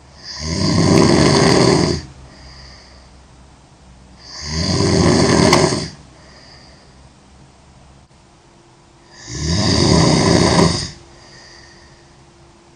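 A girl snoring loudly in slow, regular breaths. There are three long snores about four and a half seconds apart, each lasting about a second and a half, with a faint breath after each.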